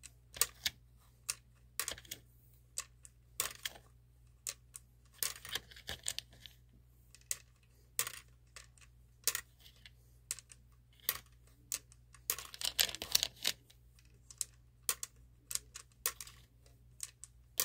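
Small plastic lottery balls dropped one by one into a wire ball cage, making irregular sharp clicks and light clatters, with a denser clatter about twelve seconds in.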